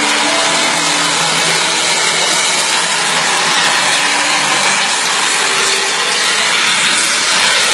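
Engine of a model jet aircraft running loudly and steadily, a broad even hiss, as the jet hangs nose-up in a low hover.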